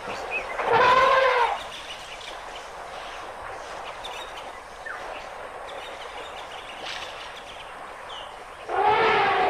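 African elephant trumpeting: a short, loud call that rises and falls about a second in, then a longer, wavering trumpet starting near the end. A few faint bird chirps in between.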